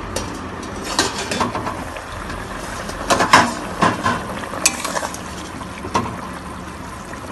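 A steel lid is lifted off a pan of boiling curry with a few metal clinks, then a metal spatula stirs and scrapes against the pan. A steady bubbling hiss from the boiling broth runs underneath.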